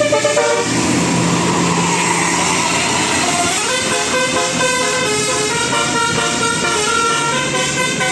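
Tour bus's Basuri 'telolet' melodic horn playing a tune, note after note at stepping pitches, with a rush of noise between about one and three seconds in partly covering the notes.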